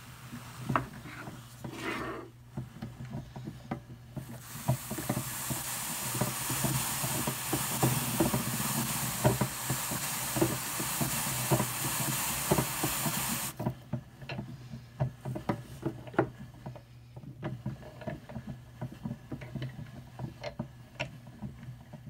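Hand-cranked Brother drum carder turning with Targhee wool on its fine carding cloth, giving light irregular ticks and rustles. From about four seconds in until about thirteen and a half seconds, a stiff-bristled brush held against the turning large drum adds a loud, steady scratchy hiss that then stops.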